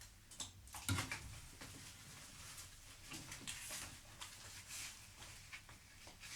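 Faint handling noises: small clicks and rustles of parts being moved, with a soft knock about a second in.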